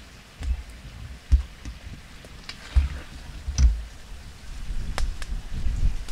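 A long metal slotted spoon clinking a few times against a steel bowl and an iron wok as fried eggplant is lifted out of hot oil, over low thumps and rumble.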